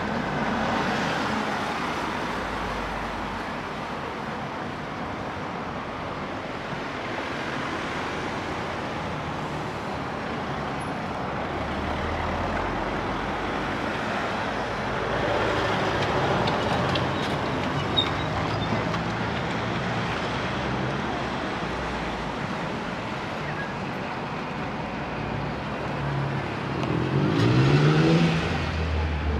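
Road traffic: cars passing with a steady rush of tyre and engine noise, and one vehicle's engine rising in pitch as it accelerates close by near the end.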